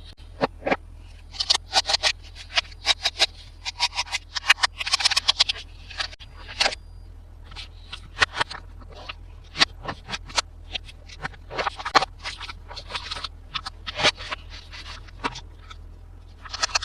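Hands unboxing plastic toys: packaging and plastic pieces rustling, scraping and clicking in quick strokes, dense for the first several seconds and then sparser.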